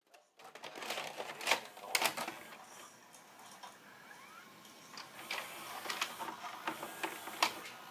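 Irregular sharp clicks and light mechanical clatter, about half a dozen distinct clicks spread over several seconds.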